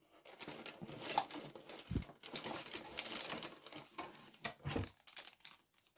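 Hand rummaging inside a cardboard box of packaged fishing tackle: irregular rustling of cardboard and plastic wrapping with small clicks, and one dull knock about two seconds in.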